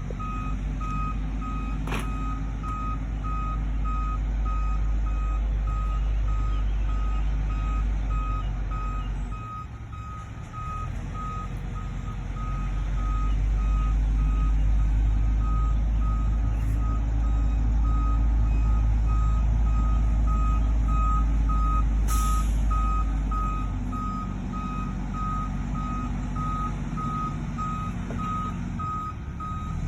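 Concrete mixer truck backing up: its reversing alarm beeps steadily at one pitch over the low rumble of its diesel engine, which drops off briefly about ten seconds in and eases again near the end.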